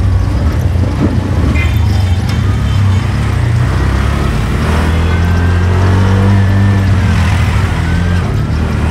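A tuk-tuk's small engine running steadily while it drives, heard from inside the open cabin.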